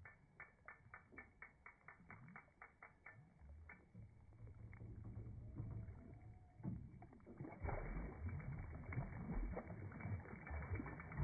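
Boat on a river: a quick run of even clicks, about six a second, for the first three seconds. Then a low steady motor hum, with rushing water and wind noise growing louder from about halfway.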